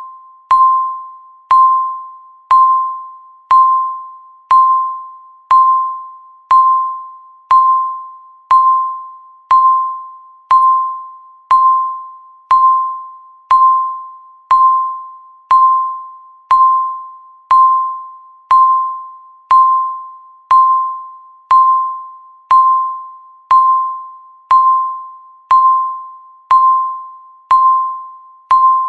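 Countdown timer beeping once a second: the same single bell-like tone each time, striking sharply and fading before the next.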